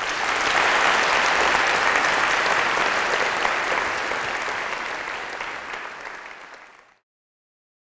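Lecture audience applauding, a large crowd clapping steadily; the applause fades from about four seconds in and cuts off suddenly about seven seconds in.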